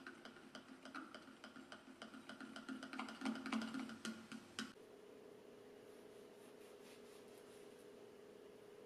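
Eggs being beaten with a metal utensil in a plastic measuring jug: rapid clicks of metal against plastic, several a second, louder around three to four seconds in, stopping suddenly about five seconds in. A steady low hum follows.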